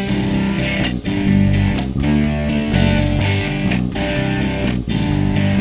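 Pop-rock style instrumental intro of a children's song: strummed guitars over bass, with short breaks in the strumming about once a second.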